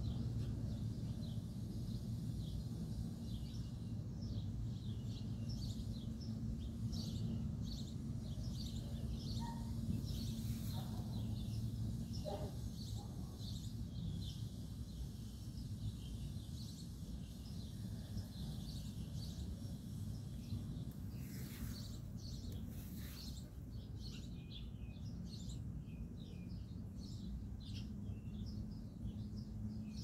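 Background birdsong: many short, high chirps from small birds come and go over a steady low hum.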